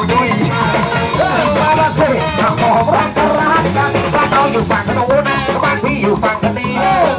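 Live band playing a ska song, with horns, drums, electric guitars and singers on microphones, loud and continuous.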